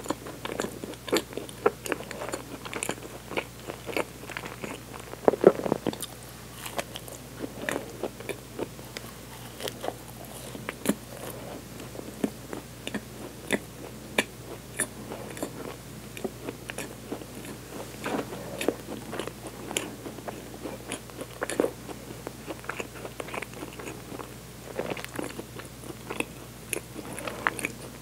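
Close-miked chewing of a soft chocolate-topped sweet pastry: irregular wet mouth clicks and smacks, with now and then a bite into the bread.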